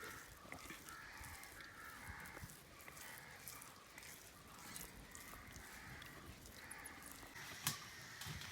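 Faint cawing of crows in several stretches, with one sharp click near the end.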